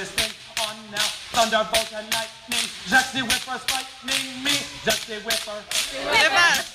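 Background music with a steady beat of about two and a half hits a second and a voice singing or rapping over it.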